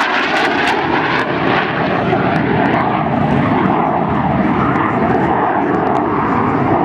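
Panavia Tornado's twin RB199 turbofan jet engines, loud and steady, with a whining tone running through the noise.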